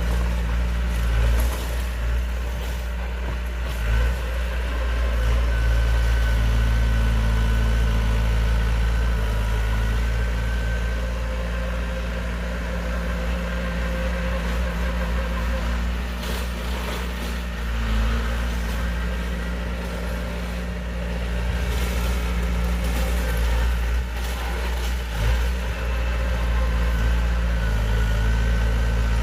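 Heavy diesel earthmoving machinery running steadily, with a few brief knocks and clanks.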